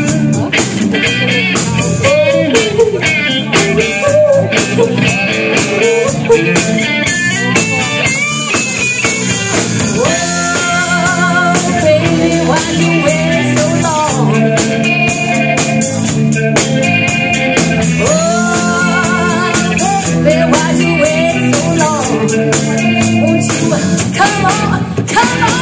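Live band playing a song amplified: a woman singing with wavering held notes over electric guitars and a drum kit keeping a steady beat.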